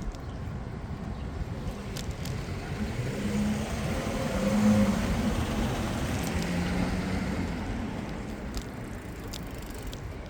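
A motor vehicle passes close by, its engine and tyre noise swelling to a peak about halfway through and then fading, over a steady low rumble of wind and traffic.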